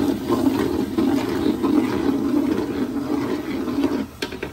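A stainless steel spade stirring a watery spice-and-onion curry base in a large aluminium pot, a dense wet sloshing with frying under it, which stops about four seconds in.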